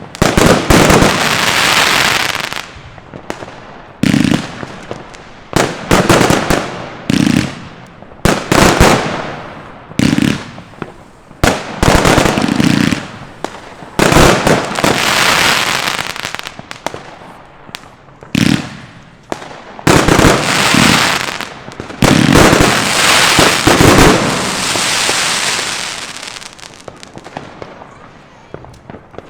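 Broekhoff "Triple X" firework battery firing: a long run of sharp shots and loud bursts, a bang every second or two, each trailing off over a second or so, thinning out and fading near the end.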